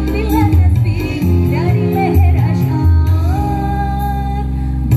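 A girls' choir singing a song with backing music and a strong bass, amplified over loudspeakers. About three seconds in, the melody rises to one long held note.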